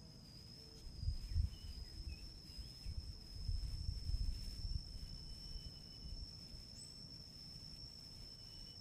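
Insects droning in one steady high tone, with gusts of wind buffeting the microphone for a few seconds, loudest about a second in and again around three to four seconds in. A few short faint bird chirps are mixed in.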